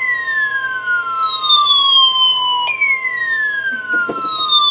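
Electronic alert siren: a loud tone that glides down in pitch over about three seconds. It snaps back up about two and a half seconds in and glides down again, over a steady single alarm tone.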